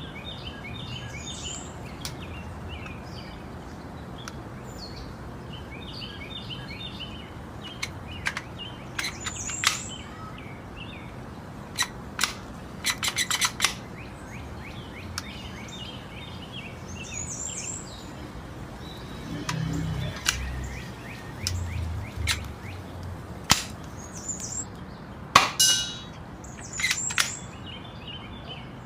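Airsoft pistol clicking and snapping at irregular intervals, including a quick run of about five clicks near the middle and one loud snap late on. Birds chirp in the background.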